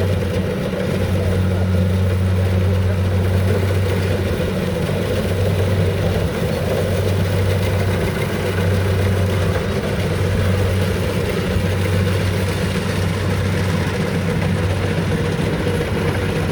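Rice combine harvester's diesel engine running at a steady, even speed with a deep, constant hum.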